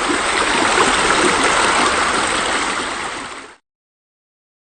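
Water falling and splashing steadily into a pool, like a pool waterfall, cutting off suddenly about three and a half seconds in.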